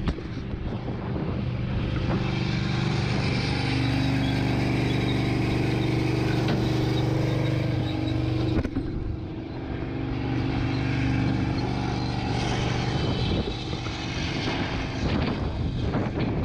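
Brush truck's engine running steadily while it supplies water to the booster hose line, its pitch shifting briefly about halfway through.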